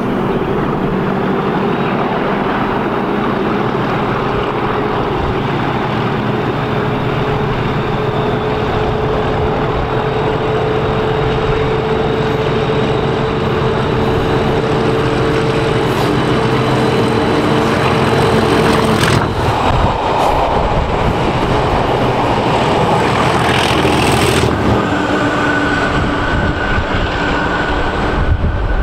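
Pair of Class 37 diesel locomotives with English Electric V12 engines, 37025 leading, powering through under load. The engine growl builds steadily as they approach, then changes sharply as the locomotive passes below, about two-thirds of the way in.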